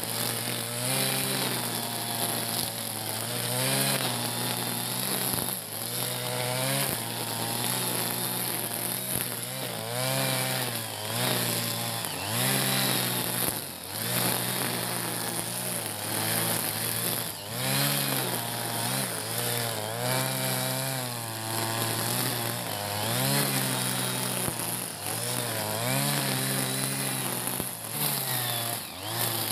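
Backpack brush cutter's small petrol engine running at high revs while cutting grass. Its pitch dips and climbs again every second or two as the cutting head swings through the grass.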